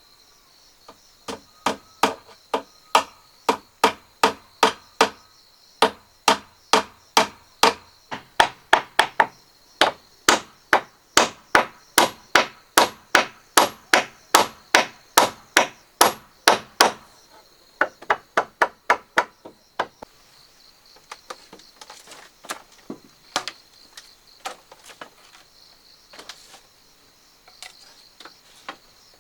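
Steady hammering on wood, about three blows a second for some fifteen seconds, then a short pause, a few more blows and fainter scattered knocks. An insect's high, steady buzz runs behind it.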